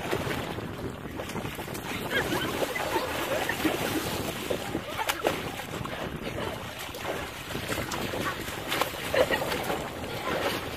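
Children wading waist-deep in a shallow pond, slapping and churning the water with their hands in irregular splashes and sloshing.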